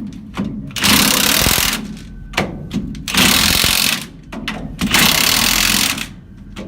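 Cordless impact wrench hammering nuts tight in three bursts of about a second each, on an axle just fitted with pinion-angle shims.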